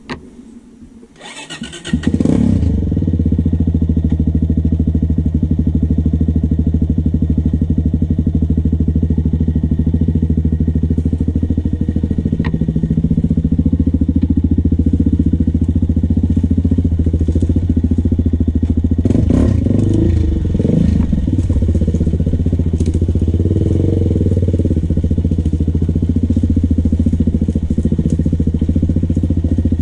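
Sport ATV's engine started about two seconds in, after a short cranking burst, then running steadily at low revs. The engine note wavers, with a few knocks, about two-thirds of the way through.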